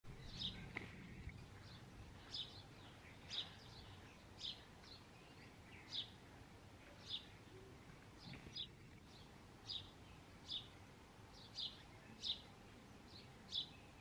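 House sparrows chirping: short single chirps repeated about once a second, over faint low background noise.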